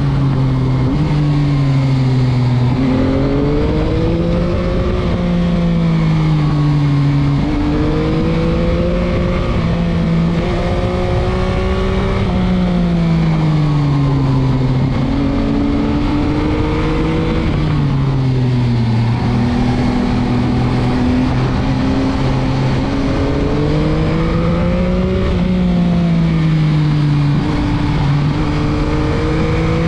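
Stock 2021 Yamaha MT-09's 890 cc inline three-cylinder engine under way, revving up and easing off again and again, its pitch rising and falling every few seconds with occasional sudden steps, over steady wind rush.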